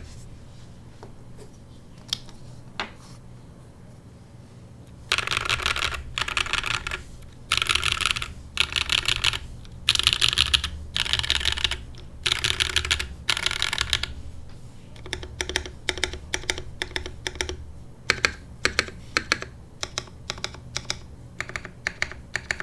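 Typing on an Iron160 gasket-mount mechanical keyboard with lubed SOTC switches, an aluminium plate and GMK keycaps. It opens with a few single key presses, then fast runs of typing in short bursts for about nine seconds, then slower separate keystrokes near the end.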